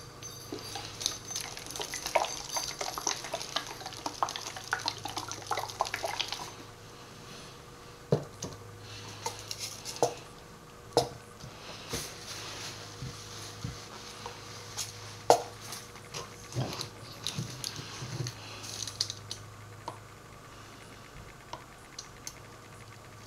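Bottles and containers being handled on a work table while oils are measured and poured: quick clicking and clinking for about the first six seconds, then scattered knocks and taps. A faint steady hum runs underneath.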